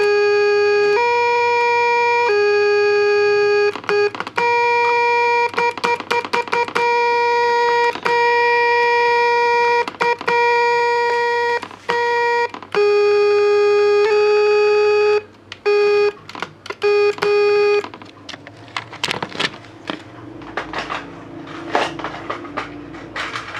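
Simple electronic tone generator played from a keyboard's switch array: buzzy steady tones stepping between a few nearby notes, with a click at each key change. For the last few seconds the tones stop, leaving irregular clicking and rattling of the keys.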